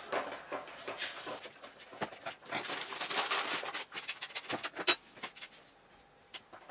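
A small spoon stirring a yeast starter in a glass, with repeated clinks and scraping against the glass and scattered light taps, busiest in the middle and sharpest click just before the end.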